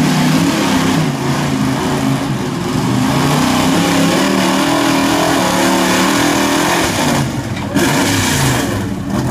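Pulling truck's engine running hard at high revs under heavy load as the pickup drags a weight-transfer sled, its pitch wavering up and down.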